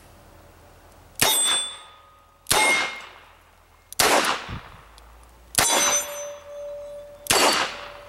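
Five shots from a Smith & Wesson Model 10-3 .38 Special revolver fired double action, about one and a half seconds apart. After several of the shots comes a ringing clang, the sound of a hit on a steel target.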